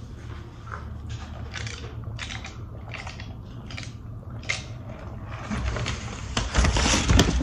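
Close-up chewing, a string of short crisp strokes about twice a second, then a paper bag crinkling loudly from about two thirds of the way in. The bag is the loudest sound.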